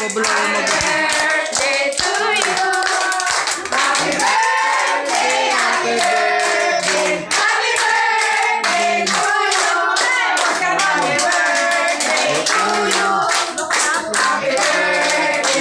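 A group of adults and children singing a birthday song together for the candles on the cake, clapping along throughout.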